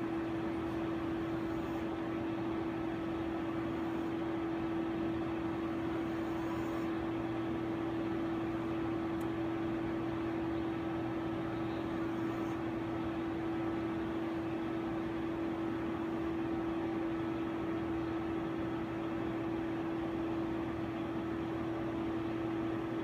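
Steady hum of running lab equipment: a constant mid-pitched tone over an even hiss, unchanging throughout.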